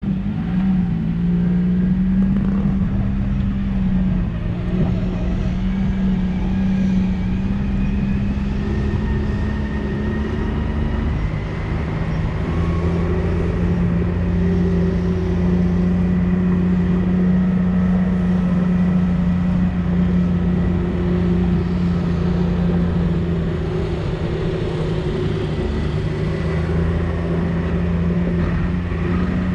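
Off-road vehicle's engine running steadily at low speed while being ridden, its note stepping slightly lower about a third of the way through.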